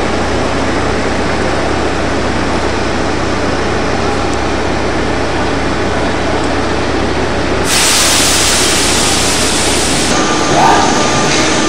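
Trolleybus and street traffic noise on a wet city street: a steady rumble and hiss. About two-thirds of the way in it turns louder and brighter for a couple of seconds, and a steady tone comes in near the end.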